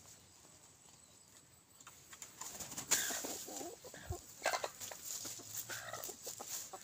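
Young red junglefowl rooster clucking low and pecking among dry leaves, with short clicks and rustles starting about two seconds in after a quiet stretch.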